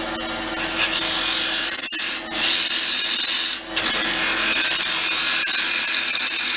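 Spindle gouge shear-scraping out the inside of a sycamore vessel spinning on a wood lathe: a steady hiss of the cut over the lathe's steady hum. The hiss breaks off briefly twice, about two seconds in and again near the middle.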